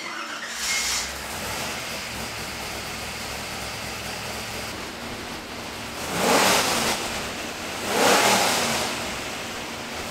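A 427-cubic-inch small-block Ford V8 (carbureted, solid roller cam, dry sump) idles steadily, then is revved in two sharp throttle blips about six and eight seconds in.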